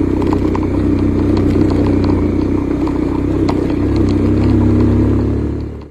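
Bajaj Pulsar 150's single-cylinder engine running steadily as the motorcycle climbs a rough gravel track, with scattered light clicks and rattles. It fades out right at the end.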